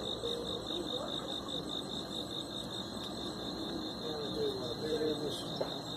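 Insects chirping in a steady, even pulse, about four chirps a second.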